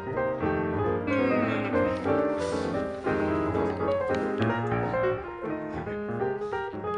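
Piano music playing, a melody of steady notes.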